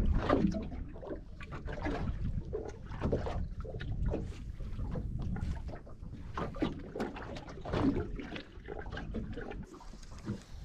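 Small waves lapping and slapping irregularly against the hull of a drifting small boat, over a low rumble of wind on the microphone.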